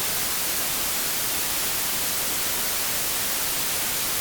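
Generated white noise playing steadily at full level, as an even hiss that cuts in abruptly. The sidechain compressor keyed from the voice has released its ducking because no voice is present.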